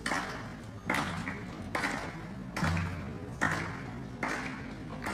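Davul, the large Turkish double-headed drum, beaten in a steady beat of about one stroke a second, each stroke sharp with a short ringing tail.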